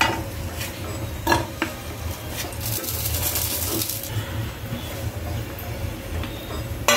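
Grated jaggery being pushed off a steel plate with a wooden spatula into a hot non-stick kadhai: a few knocks and clinks of spatula and plate on the pan, and a scraping rasp for about a second in the middle.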